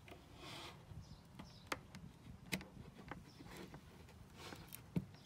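A few faint, sharp clicks and taps as a DC power plug is pushed into a Raspberry Pi amplifier board's power jack and the board is handled on a table.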